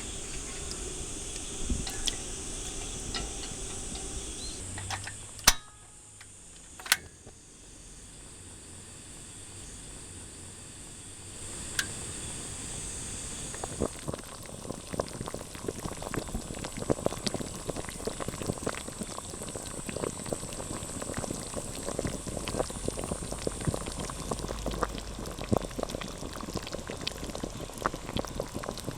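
A pot of chicken soup boiling: two sharp clicks a few seconds in, then from about a third of the way through a dense, steady bubbling of many small pops.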